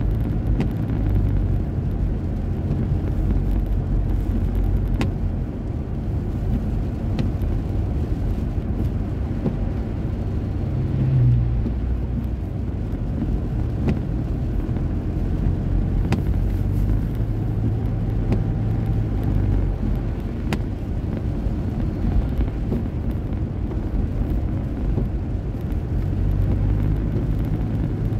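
Road noise heard inside a moving car's cabin: a steady low rumble of engine and tyres on a wet road, with a few faint clicks here and there.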